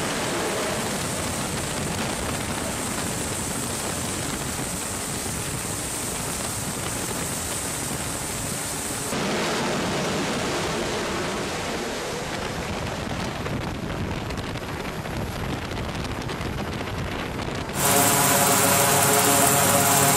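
Steady rushing roar of F/A-18 jet engines running on an aircraft carrier's flight deck, mixed with wind, changing character about nine seconds in. Near the end the twin turboprops of a C-2 Greyhound take over with a louder, steady propeller drone.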